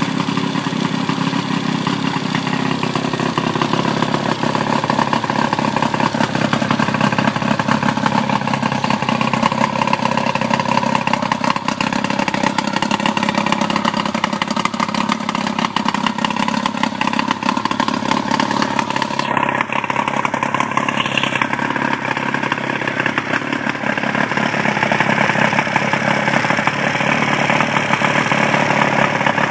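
Johnson 55 hp Sea Horse two-stroke outboard running steadily with its cowling off, a fast even firing beat with no revving up or down.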